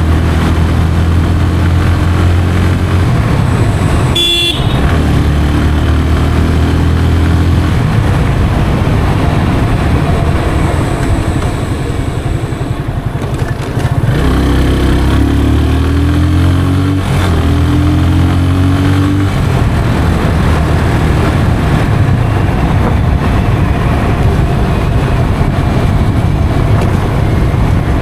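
Yamaha FZ 25's 249cc single-cylinder engine and stock exhaust running under way, the note holding steady, easing off briefly near the middle, then rising again as it accelerates. A short horn toot sounds about four seconds in.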